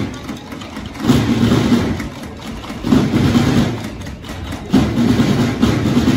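School band playing, with low sustained notes coming in swells about every two seconds.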